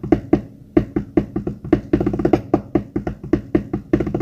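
Improvised drumming on a hard household surface such as a floor or table: a steady rhythm of about four strikes a second, with quicker runs about two seconds in and near the end, over a low ring.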